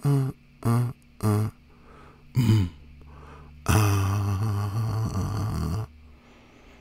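A man's wordless vocal sounds: four short low hums or grunts, then one long, low, breathy drawn-out sound lasting about two seconds.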